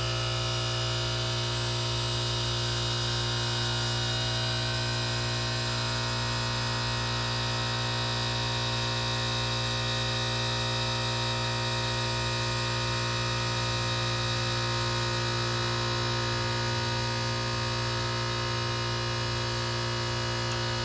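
Carrier 38YCC heat pump outdoor unit humming steadily in a forced defrost cycle, its compressor running with the condenser fan stopped.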